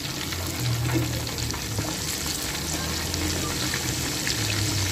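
Chicken leg pieces deep-frying in hot ghee in a metal karahi on a low flame: steady sizzling with fine crackles and pops, over a low hum.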